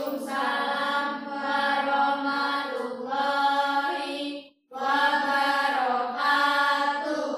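A class of students chanting in unison in a drawn-out, sing-song voice, answering the farewell greeting of Islam ("wa'alaikumussalam warahmatullahi wabarakatuh"). It comes in two long phrases with a brief break about four and a half seconds in.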